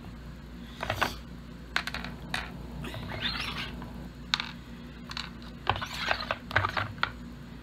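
Hard plastic trays of an Outward Hound Lickin' Layers dog puzzle toy being turned and handled: irregular light clicks and taps, with a brief scraping rub about three seconds in.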